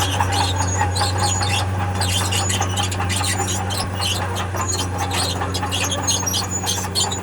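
Diesel engine of a tracked earthmover running steadily, with its steel crawler tracks squealing and clanking as the machine moves.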